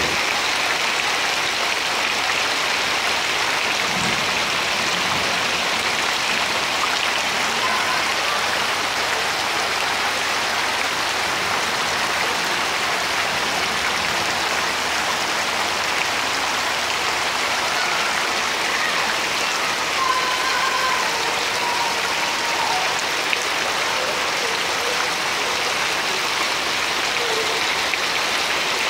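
Heavy rain pouring steadily onto a flooded paved courtyard, a constant hiss of drops splashing into standing water.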